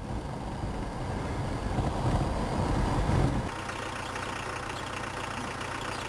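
Low rumbling noise on a camcorder's built-in microphone while the camera moves along a gravel road. About three seconds in it changes abruptly to a quieter, steady outdoor hiss.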